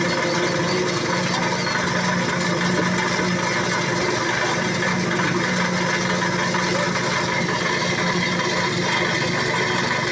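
An engine running steadily with an even hum and no change in speed, under a dense noisy haze.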